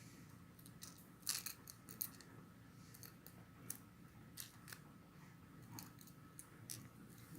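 A dozen or so light, irregular clicks and ticks, the loudest about a second in, over a faint low hum.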